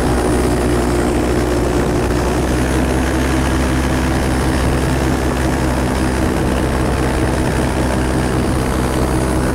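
A small propeller aircraft's engine and propeller droning steadily, heard from on board, with no change in pitch.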